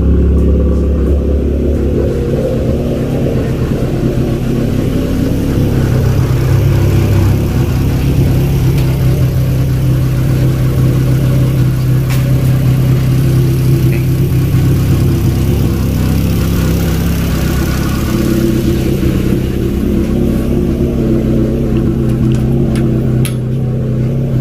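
Car engine idling steadily with all its electrical loads switched on. Its low hum shifts slightly a few times, and there are a few faint clicks.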